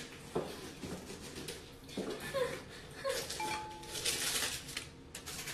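A handbag being handled: soft knocks and a short rustle, with a few brief squeaky chirps in the middle.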